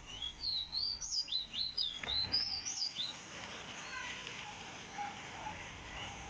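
Ruddy-breasted seedeater singing: a rapid warbled phrase of high notes sliding up and down, lasting about three seconds, followed by a few fainter chirps.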